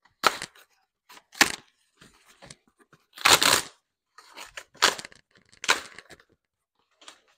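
Cardboard packaging being torn open and handled as a set of new mower blades is unboxed: a series of short ripping and rustling bursts, the longest and loudest about three and a half seconds in.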